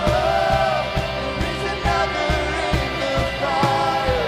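Live worship band music, with a steady drum beat under guitars and a held melody line that slides between notes.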